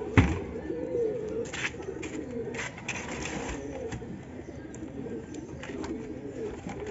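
Domestic pigeons cooing continuously inside their loft. A sharp wooden knock comes just after the start, followed by a few lighter knocks and clicks as a wooden-framed loft door is handled and fitted.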